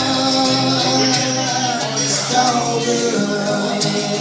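Acoustic guitar strummed in a live solo performance, with the singer's voice holding wordless notes between lyrics.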